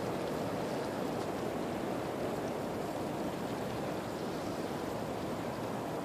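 Ocean water and surf washing steadily around the pier: a continuous, even rushing wash with no separate breaks standing out.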